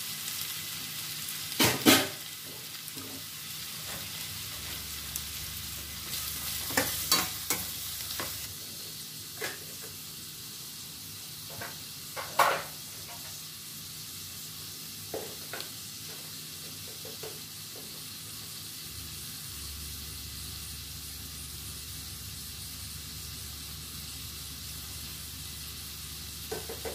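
Thinly sliced onions sizzling steadily in hot oil in a pan as they are sautéed until soft. They are stirred now and then, the utensil knocking and scraping against the pan in short clatters, mostly in the first two-thirds.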